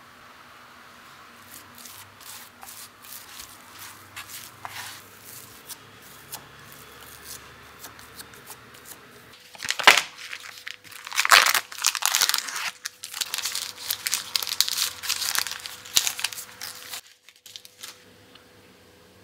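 Individually wrapped string-cheese sticks being torn out of their thin plastic wrappers: loud crinkling and tearing of the plastic for about seven seconds, stopping suddenly. This follows softer scraping of a wooden spoon stirring mashed potato in a glass bowl.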